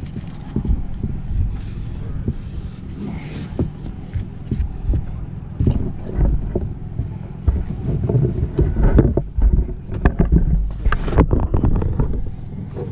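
Wind rumbling on the microphone, with clicks, knocks and rustles of rocket parts and a nylon parachute being handled on a table.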